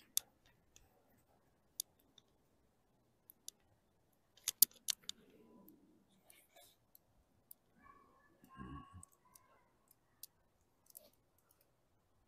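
Faint scattered small clicks and knocks, a few louder ones close together about four and a half seconds in, with a brief low murmur of a voice near nine seconds in.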